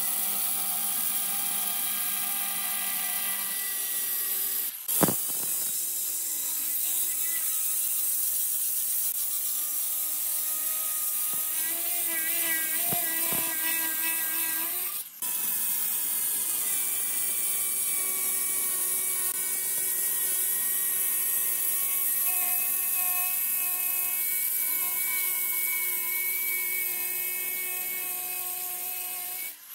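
Handheld electric stone cutter with a diamond blade cutting through a wet granite slab: a steady high-pitched grinding whine whose motor pitch shifts a little as the blade loads up. It breaks off briefly about 5 seconds in and again about halfway.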